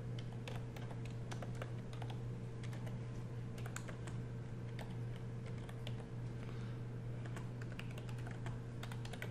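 Typing on a computer keyboard: quick, irregular key clicks, with a steady low hum underneath.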